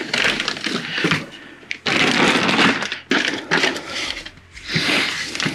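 Packing material rustling and crinkling as a boxed exhaust silencer is unpacked, in about four handling bursts with a few small clicks and knocks.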